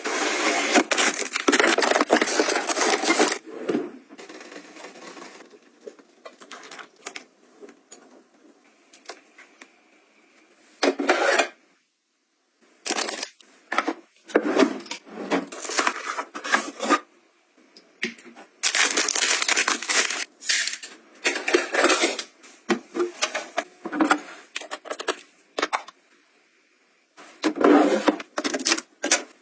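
Close-up handling of household items: bursts of clicking, tapping and rustling as containers and plastic packaging are picked up, opened and set down, with short pauses between.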